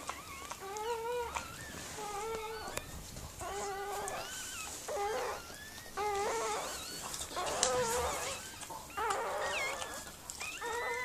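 Newborn puppies whimpering: a string of short, wavering cries, roughly one a second.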